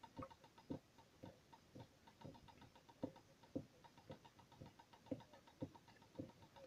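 Water drops falling one at a time onto a stainless steel sink strainer: a steady drip, about two light ticks a second, with fainter ticks between them.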